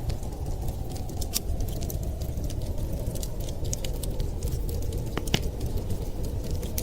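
Wood fire crackling in a fireplace, with many small, irregular sharp pops and snaps over a steady low rumble.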